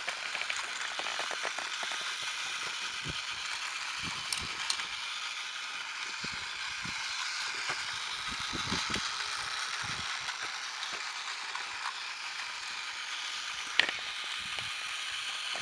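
Battery-powered Tomy Plarail toy train running along plastic track, its small motor and gears whirring steadily with light clicks and rattles. One sharper click comes near the end.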